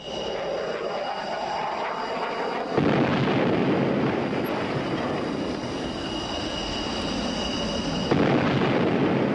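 Jet aircraft engine noise, a steady rush with a thin high whine. It turns suddenly louder and rougher about three seconds in and again about a second before the end.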